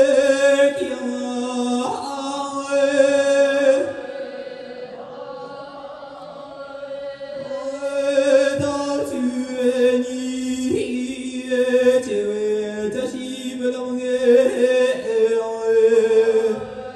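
Tibetan Lhamo opera singing through microphones: long, wavering held notes that step up and down between pitches, softer for a few seconds around the middle.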